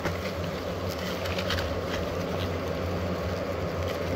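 Swarm of hornets (vò vẽ) buzzing around their opened paper nest, a steady low drone, while a gloved hand handles the papery combs with a few light crackles about a second in.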